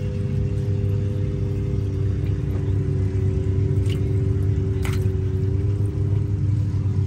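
Steady low drone of a running motor, with a few even tones held above it. Two short clicks about four and five seconds in.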